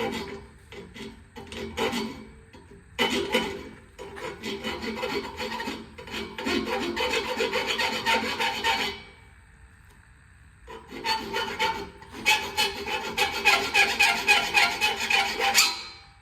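A file rasping across the freshly cut ends of square U-bolts, taking off the burrs. It comes as two spells of quick repeated scraping strokes with a short pause between them.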